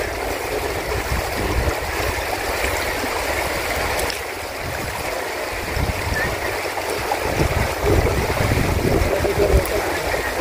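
Shallow river rushing steadily over rocks, with uneven low rumbling underneath.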